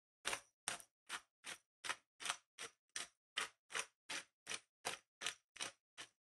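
Spice grinder being twisted by hand to grind chili flakes: a steady run of short grinding clicks, about three a second.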